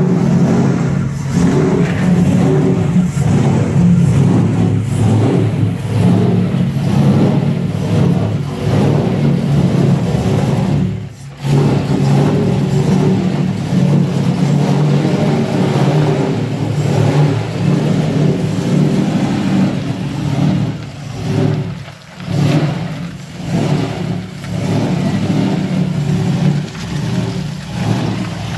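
V8 engine of a Mitsubishi Space Wagon van running loud through its newly built 4-inch exhaust with a flat muffler, with light revs as the van creeps forward. The sound drops out briefly about eleven seconds in, and dips a few times around twenty-two seconds.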